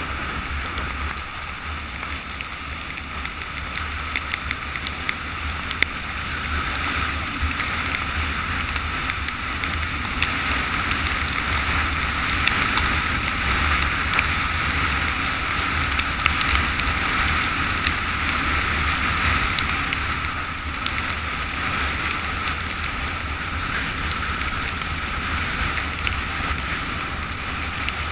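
Steady rush of wind over a GoPro camera's microphone and skis running fast over snow on a downhill descent, with scattered short clicks and knocks.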